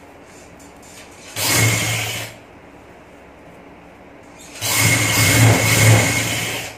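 Sewing machine running in two bursts, about a second and then about two seconds, as it stitches lace onto a cotton trouser leg.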